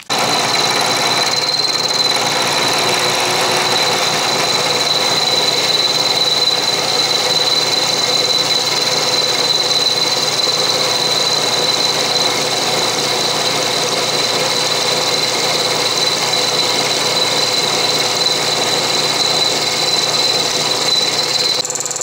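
Bridgeport milling machine's end mill cutting a step in a steel block on a 100-thousandths-deep roughing pass: a steady cutting noise with a high whine through it. The whine drops out near the end.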